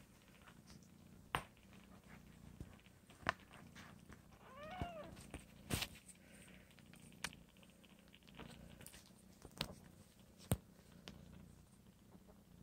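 Mother cat purring steadily while her two-week-old kittens nurse, with one short, high kitten mew about five seconds in. Several sharp clicks or taps stand out above the purring.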